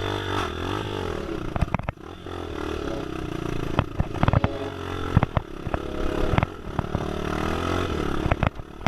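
Trail motorcycle engine running, its pitch wavering with the throttle, with many sharp clattering knocks throughout.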